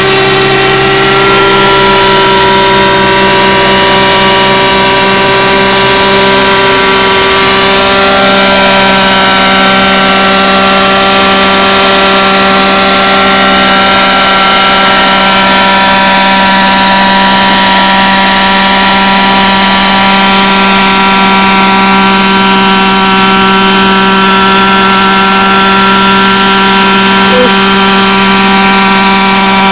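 Large-scale radio-controlled Vario Schweizer model helicopter flying: its engine and rotors give a loud, steady whine of several tones, which shifts slightly in pitch about eight seconds in.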